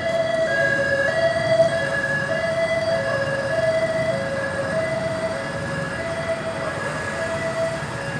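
Ambulance siren in a two-tone hi-lo pattern, switching between two pitches about every half second, over traffic rumble and getting slightly quieter.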